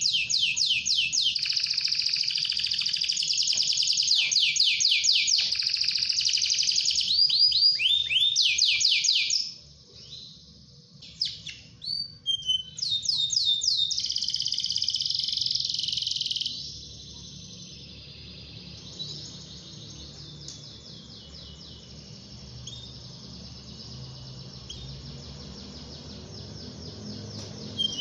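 Domestic canary singing long runs of rapid trills, fast repeated high notes that each slide downward. The song breaks off about nine seconds in and returns in short phrases. From about sixteen seconds on it carries on more quietly.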